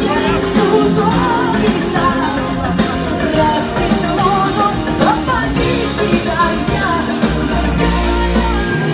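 Female singer singing a Greek pop song live into a microphone over a band with drums and bass.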